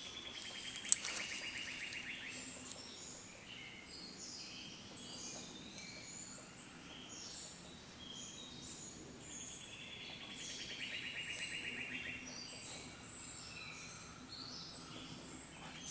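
Songbirds singing: scattered short chirps and whistles, with a long rapid trill at the start and again about ten seconds in. One sharp click about a second in.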